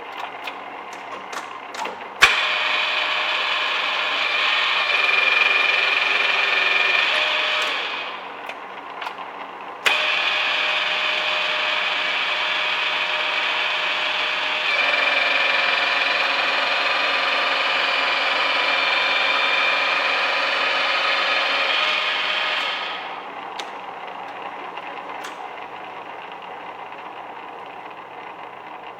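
Milling machine running with a steady multi-tone whine. It goes abruptly louder about two seconds in and again about ten seconds in, each time as if taking a cut, then eases back to a quieter hum near the end.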